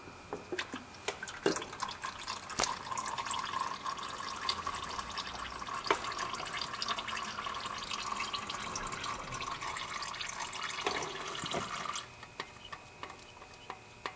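Engine oil draining from the oil filter housing of a 2009 Honda Civic into a bucket: a steady pouring stream with drips. The stream stops suddenly about twelve seconds in, leaving scattered drips.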